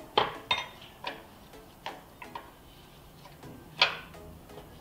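A 7/8 wrench clicking sharply against metal at irregular intervals, about six times, the loudest near the end. The wrench is being worked in short strokes to loosen a tight EGR tube fitting on a Mazda 2.3 turbo engine.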